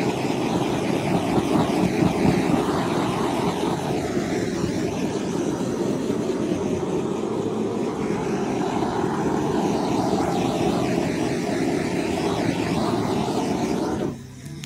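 Handheld compressed-air gun on an air hose blowing a steady rushing stream of air, cutting off suddenly near the end.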